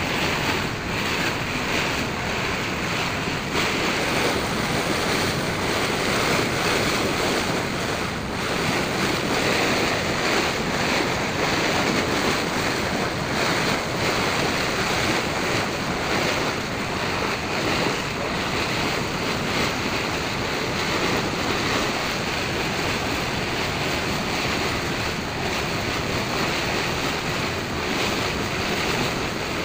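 Water rushing and splashing past the hull of a moving ferry boat, mixed with wind buffeting the microphone: a steady noise that holds at one level throughout.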